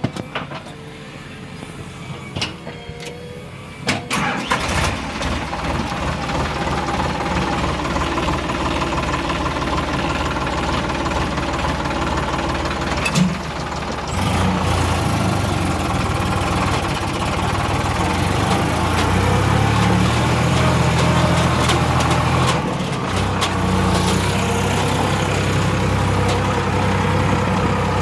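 Heavy diesel engine of earth-moving machinery starting up about four seconds in, then running steadily, with a deeper, heavier note from about halfway through.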